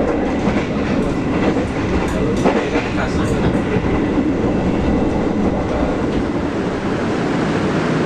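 Interior noise of a moving stainless-steel passenger train coach: a steady rumble of the running train, with a few sharp clicks of the wheels over the rails around the middle.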